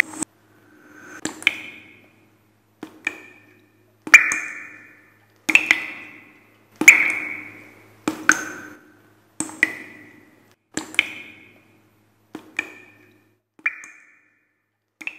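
Sound effects for an animated logo: a sharp click with a short ringing ping after it, repeating about every second and a half, some led in by a short rising swell. The pings are loudest around the middle and softer near the end.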